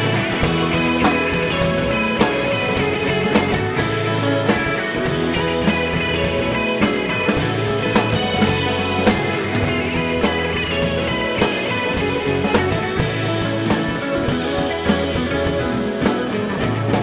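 A live folk-rock band plays an instrumental passage without vocals. Drum strokes land throughout, under sustained pitched instrument notes.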